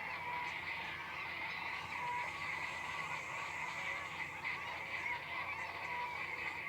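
A dense chorus of many animal calls overlapping continuously at an even level, honk-like and brightest in the upper middle range.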